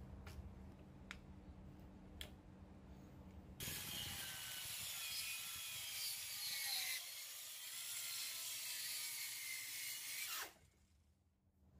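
Worx mini circular saw ripping plywood, with an ice pick wedged in the kerf to keep the blade from binding: a low hum and a few light clicks, then from about three and a half seconds the cut, a hissing rasp with a motor whine that wavers in pitch. It stops suddenly near the end.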